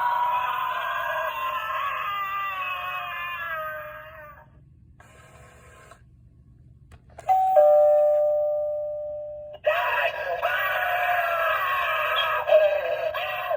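Gemmy animated spider doorbell playing its built-in sounds through its small speaker. First comes a warbling, voice-like clip, then a short pause, then a two-note ding-dong chime about seven seconds in that rings out and fades. Another warbling voice-like clip follows near the end.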